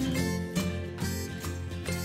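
Background music: plucked strings, guitar-like, with a steady beat.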